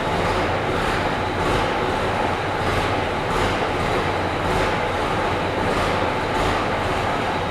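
Gardner six-cylinder diesel engine of a Bristol RE bus running steadily after a cold start, still warming up.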